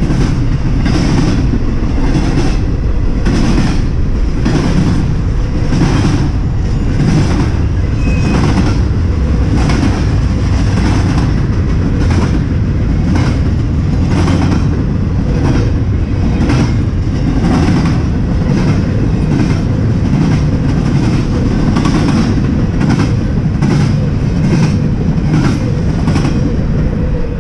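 Double-stack intermodal freight train's loaded well cars rolling past close by: a loud, continuous steel-wheel rumble with wheel clacks in a steady, regular rhythm.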